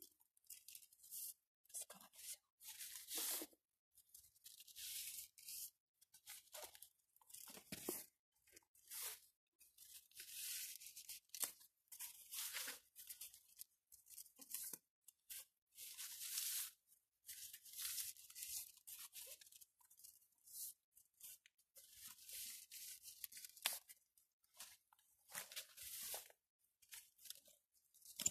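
Long Siberian iris leaves rustling and swishing as they are gathered and pulled tight by hand for braiding, in many irregular strokes, each up to about a second long.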